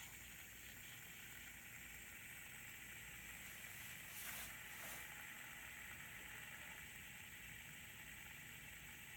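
A fidget spinner whirring faintly and steadily on its ball bearing after being flicked into a spin, with a slight swell about four seconds in.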